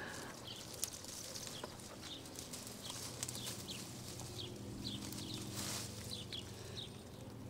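Faint outdoor sound of repeated short, high chirps, one every second or so, with scattered light clicks and a steady low hum underneath.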